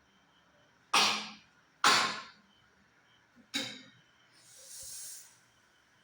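A person sneezing three times, the first two about a second apart and the third more than a second and a half later, followed by a softer breathy hiss.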